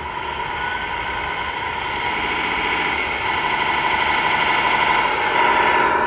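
Simulated diesel truck engine sound from a Tamiya MFC-01 sound unit's speaker, running as a 1/14 Tamiya Globe Liner RC semi drives across dirt, mixed with the truck's own drivetrain. It grows louder as the truck comes closer, loudest near the end.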